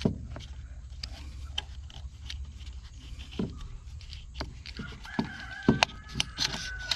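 Small clicks and rubbing from a Tecumseh recoil starter's plastic housing and pulley as the pull cord is worked into place by hand, over a low steady hum; the sharpest clicks come about two-thirds of the way through.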